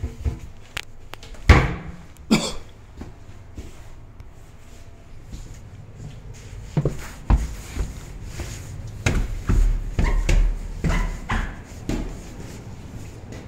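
Indoor handling and footstep sounds: two sharp knocks, like a door or cupboard bumped shut, in the first few seconds. Then a run of irregular footfalls going down basement stairs in the second half.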